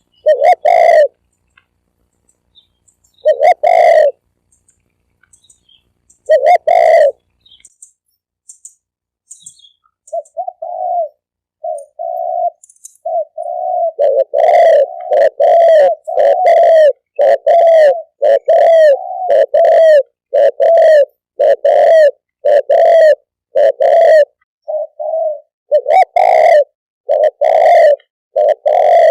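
Spotted dove cooing. Three loud, well-spaced coos come first, then a few short, softer notes, then a fast run of coos at about one a second.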